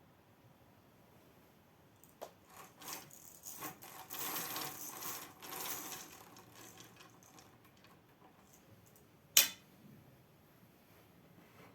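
Objects being handled: a few seconds of rubbing and rustling with light knocks, then a single sharp click or knock near the end.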